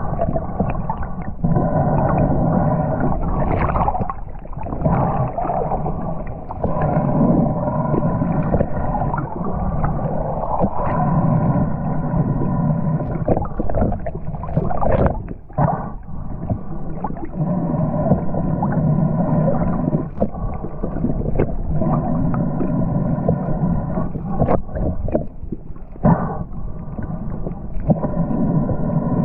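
Steady underwater drone of a boat engine heard through the water: a layered hum whose low part swells and fades every few seconds, with a few brief bubbly knocks.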